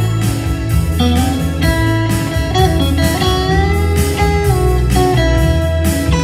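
Live band playing an instrumental passage: an electric guitar lead with sliding notes over bass guitar and keyboard, with a steady beat.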